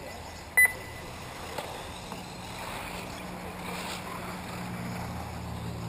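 A single short, loud electronic beep about half a second in, over steady outdoor noise; a low steady hum rises slightly from about halfway.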